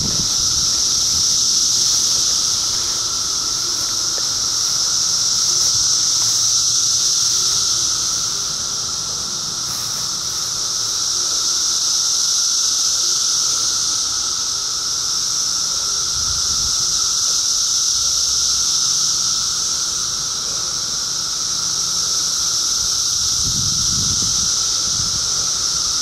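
Chorus of periodical cicadas from the 2013 emergence (Brood II): a loud, unbroken buzzing din, a high hissing buzz over a lower drone, swelling and easing about every six seconds.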